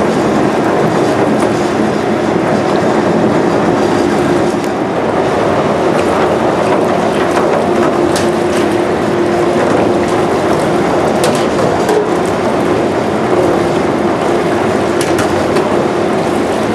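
Power Soak powered pot-and-pan washing sink running: its pump keeps the foamy wash water in continuous motion with a loud, steady churning rush and a steady hum. A few light metal clinks come from pans being lifted out.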